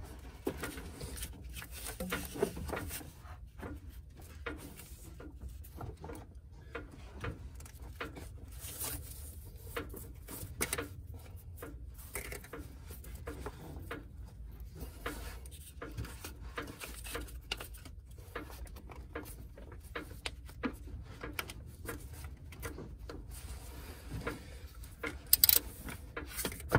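Rubber serpentine belt being worked by hand onto engine pulleys: scattered soft rubs and clicks over a low steady hum, with a few louder clacks near the end.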